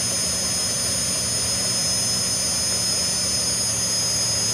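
Pulling tractor's engine running steadily, with several steady high-pitched whines over it.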